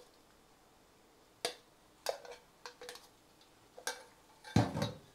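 A few light knocks and clicks of kitchenware on a stone mortar as rice is tipped and pushed into it, with a louder, heavier knock near the end.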